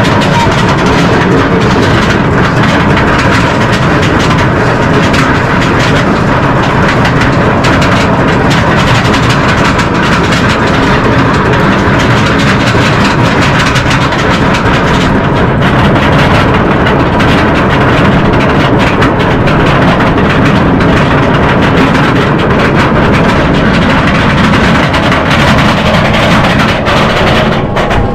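SheiKra dive coaster ride heard from aboard the train: a loud, steady rush of wind and track rumble, unbroken until it eases off at the very end.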